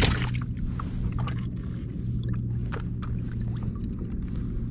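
Water lapping and gurgling against a plastic kayak hull, with scattered small clicks and knocks, over a steady low hum.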